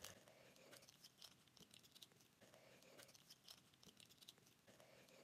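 Near silence: faint small clicks and rustles of hands handling toys.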